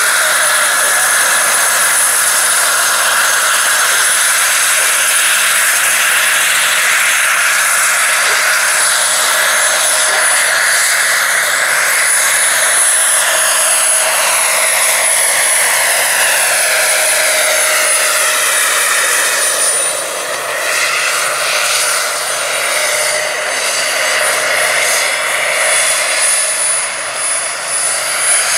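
Small gas-turbine engine of a large radio-controlled Bell 412 model helicopter running, a high steady whine over a loud rushing hiss. About two-thirds of the way through the pitch glides down and back up as it flies off, and it gets a little quieter.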